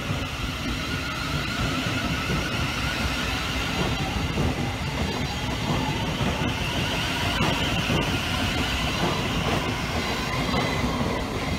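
Thameslink Class 700 electric multiple unit pulling away along the platform, its traction motors whining in rising tones over steady wheel-on-rail noise with light regular clicks.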